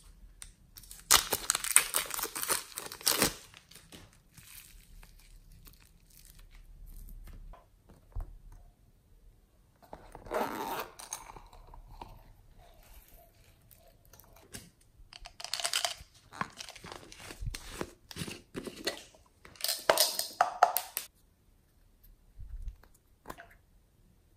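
Plastic packaging crinkling and being torn open, in several bursts of rustling, with the loudest about a second in and again near the end.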